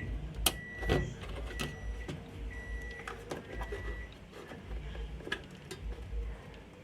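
Washing machine control panel beeping: five short, high electronic beeps about a second apart, stopping about four seconds in, among clicks and knocks of handling.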